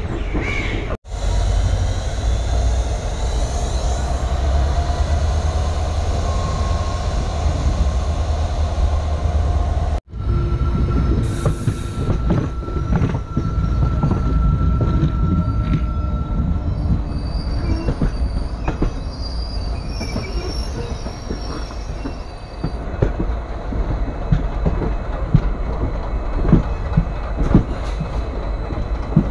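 Indian Railways passenger train running, heard from an open coach doorway: a steady low rumble of the coaches, a thin wheel squeal for a few seconds as it takes a curve, then the repeated clack of wheels over rail joints in the later part.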